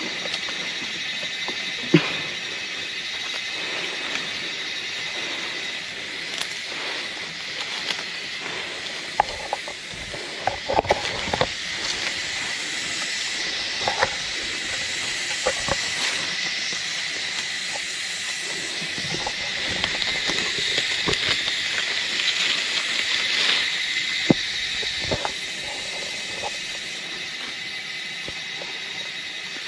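Steady high-pitched drone of forest insects, with a held whine, swelling a little past the middle, while scattered knocks and snaps come over it.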